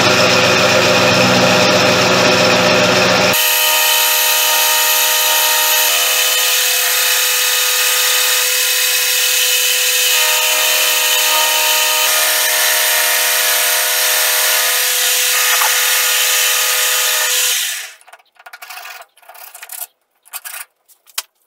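Metal lathe milling a metal block with a cutter held in the spinning chuck, the work clamped on a vertical slide. A harsher cut for the first few seconds gives way to a steady whine of several tones over a hiss of cutting. It winds down after about seventeen seconds, followed by a few light knocks of handling.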